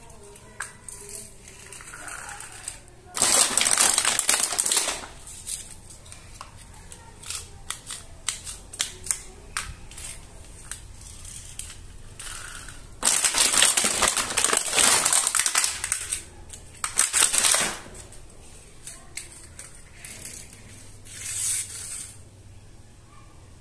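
Small plastic toy pieces being handled and snapped together, making many light clicks, with several loud bursts of rustling noise lasting a second or two.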